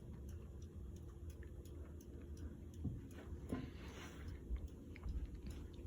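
Casablanca Four Seasons III ceiling fan, heard faintly as a low steady hum with a few light ticks.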